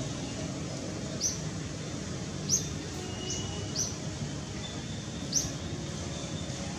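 About five short, high-pitched animal chirps at irregular intervals over a steady outdoor background hiss, with a faint thin whistle near the middle.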